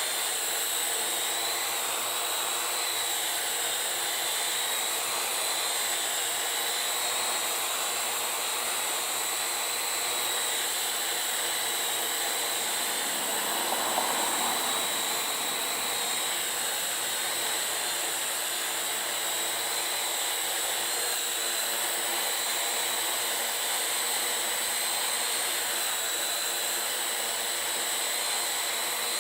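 Parrot AR.Drone 2.0 quadcopter's motors and propellers running steadily, a whirring with a high whine, swelling briefly about halfway through.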